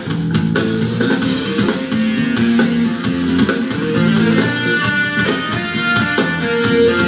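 Live band playing amplified, with electric guitars and bass over a drum kit, guitar to the fore.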